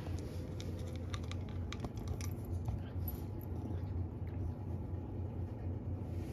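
Domestic cat crunching dry kibble from a ceramic bowl: a run of small sharp crunches, mostly in the first half, over a steady low hum.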